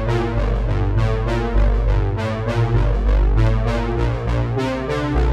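Background music with a strong bass line and quick, evenly paced notes.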